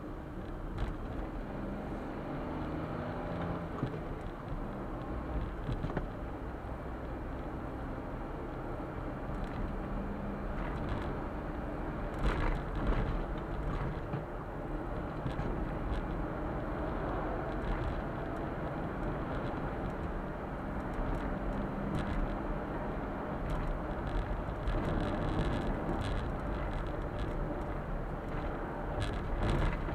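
Suzuki Super Carry kei truck driving along a road, heard from inside the cab: a steady engine and road-noise rumble. Short knocks and rattles come now and then, bunched about twelve seconds in and near the end.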